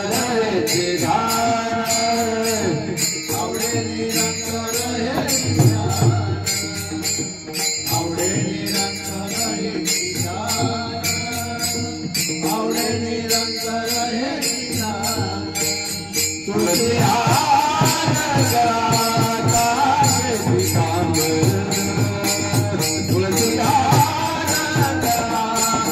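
Varkari bhajan music: a sung devotional melody over small hand cymbals (taal) jingling on a steady beat. About sixteen seconds in the playing and singing grow louder and fuller.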